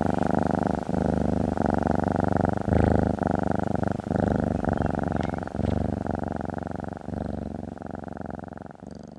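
Sound effect of a cat's low, rapidly pulsing rumbling purr, held steady and muffled, fading away over the last two seconds.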